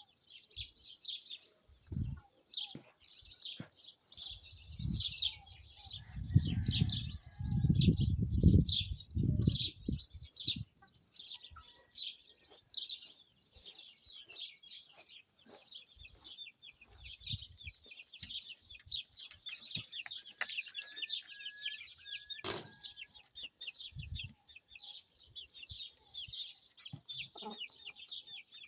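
Many small birds chirping in a dense, continuous chorus. A low rumble of wind on the microphone swells from about 4 to 10 seconds in, and a single sharp click comes about 22 seconds in.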